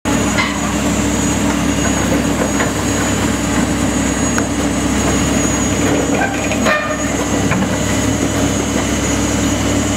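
Heavy machinery running steadily: a Komatsu excavator's diesel engine droning under load while it pushes a patrol boat's launching cradle down a slipway, with a rolling clatter and a few sharp metal clanks, one about seven seconds in.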